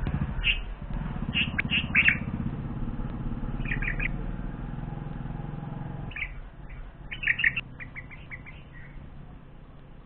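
Bulbuls chirping at the nest in short clusters of quick high notes, with a few seconds' gap between clusters, as an adult brings food to its chicks. A low engine hum runs underneath and fades out about six seconds in.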